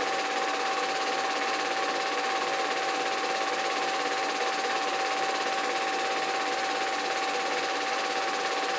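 Small model steam train running steadily: a constant whine over an even mechanical hiss, with no change in pace.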